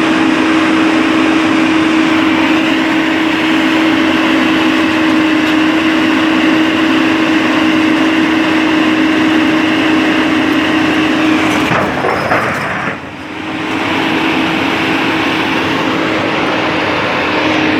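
Heavy engine running steadily at a constant speed with a strong steady hum, dipping briefly about three-quarters of the way through before picking up again.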